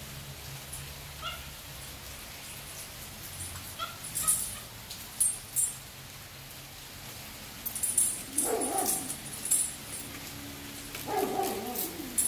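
Big dogs barking in two bursts, one about two-thirds of the way in and one near the end, with scattered sharp high ticks in between.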